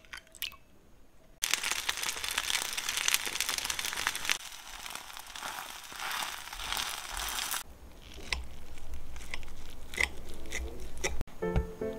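Taiwanese egg crêpe (dan bing) frying in oil in a nonstick pan: a steady sizzle that cuts in about a second and a half in and stops about two-thirds of the way through. Quieter scrapes and ticks follow.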